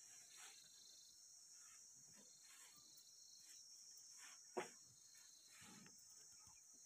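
Near silence: a faint steady high hiss with soft scattered rustles, and one sharp click about four and a half seconds in.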